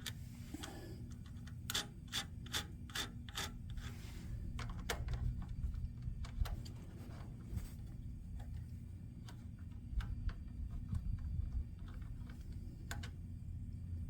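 Hand tools and small metal engine parts being handled, clicking and rubbing. About a second and a half in comes a quick run of six or seven sharp clicks, then lighter scattered clicks and one more sharp click near the end, over a steady low hum.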